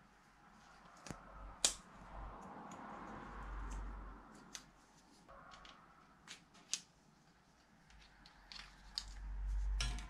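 Pocket knife being worked apart with a small metal tool to take off its plastic handle scale: scattered sharp metallic clicks with soft scraping in between.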